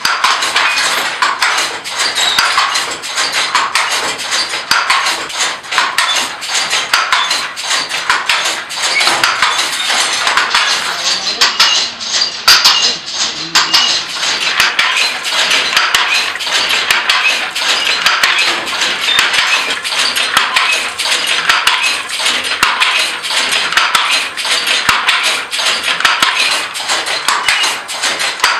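Wooden silk handloom at work: a dense, unbroken clatter of clacks and knocks from the shuttle and beater.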